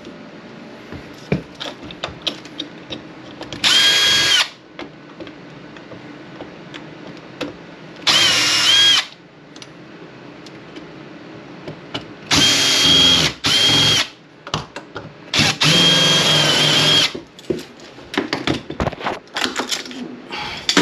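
Power drill running in short bursts, about five pulls of the trigger of one to one and a half seconds each, with a steady motor whine. Small clicks and handling noises come between the bursts.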